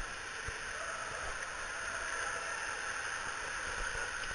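Water rushing down an enclosed water-slide tube as a rider slides through it: a steady hiss.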